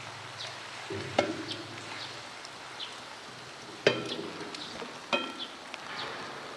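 Heavy rain falling steadily, with faint short high chirps repeating through it. Three sharp knocks with a brief ringing, about a second, four seconds and five seconds in, are the loudest sounds.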